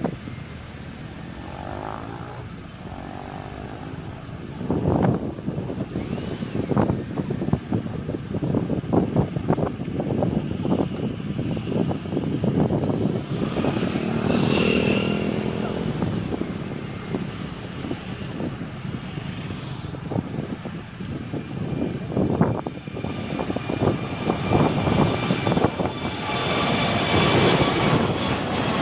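Twin-engine jet airliner's engines growing louder over the last few seconds as it climbs out low overhead, a rising roar with a high whine. Before that, an irregular outdoor rumble with sudden low knocks.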